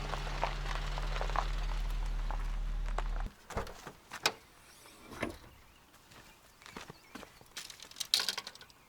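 A steady low hum that cuts off suddenly about three seconds in, followed by scattered light knocks and clicks.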